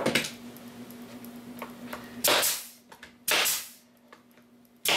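Pneumatic narrow-crown stapler firing three times, driving 1-inch staples into wood: sharp shots about two seconds in, a second later, and near the end, each trailing off briefly.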